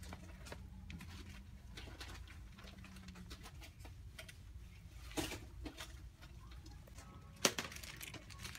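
Quiet indoor room tone with a steady low hum, broken by scattered small clicks and rustles of handling, with two sharper clicks about five and seven and a half seconds in.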